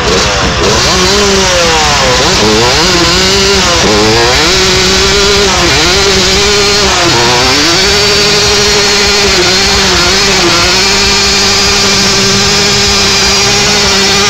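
Suzuki RM125 dirt bike's 125 cc two-stroke single-cylinder engine revving up and down several times, then held at high revs for the second half with a few short dips, while the rear tyre spins on asphalt in a burnout.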